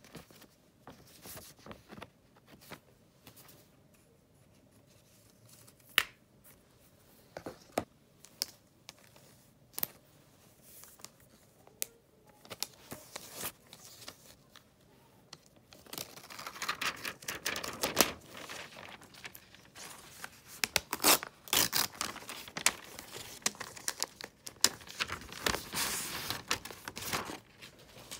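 Scattered light clicks and taps of packaging being handled, then from about sixteen seconds in a long run of tearing and crinkling as the protective wrap is peeled off a new iPad Air 5.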